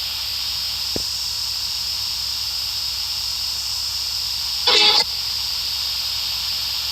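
Steady high-pitched hiss, with a faint click about a second in and one short, loud pitched blip about five seconds in.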